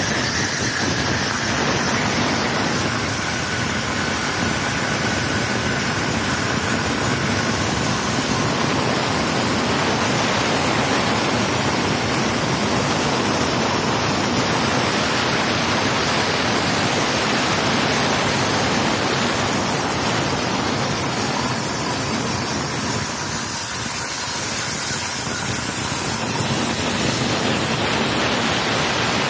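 Everlast Power Plasma 82i torch on a CNC plasma table cutting through half-inch steel plate: the arc and air jet make a loud, steady hiss.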